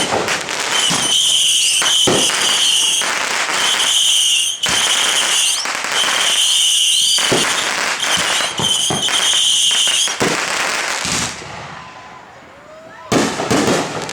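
Neighbourhood fireworks going off: dense crackling and bangs with a steady high-pitched tone in stretches, dying down about eleven seconds in before another cluster of bangs near the end.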